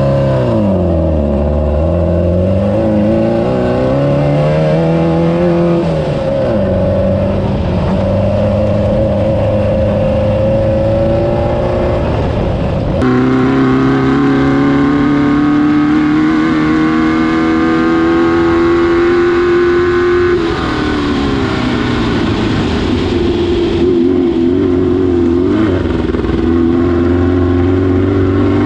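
Class 9 desert racing buggy's engine running hard under race load, its pitch dropping and climbing again several times as it lifts off and accelerates. About halfway through it jumps suddenly to a louder, higher pitch.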